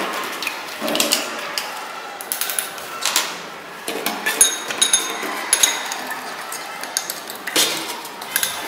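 Metal spoon stirring and scraping dry white powder in a small glass beaker, with scattered taps and clicks and a few brief ringing clinks of metal on glass a little before the middle.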